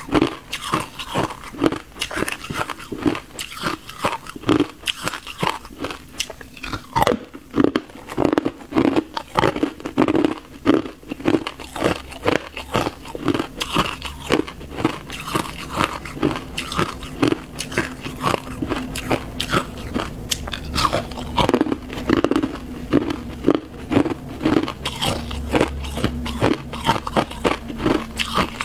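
Ice crunching between teeth: a person biting off and chewing pieces of crushed ice, a steady run of crisp crunches, a few each second.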